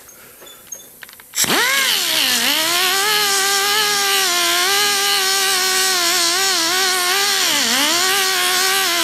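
Right-angle grinder with a 3-inch abrasive disc starting up about a second and a half in, its whine rising fast, then running steadily at high speed while grinding down the rolled steel edge of a car window flipper strip. Its pitch sags twice as the disc is pressed into the metal.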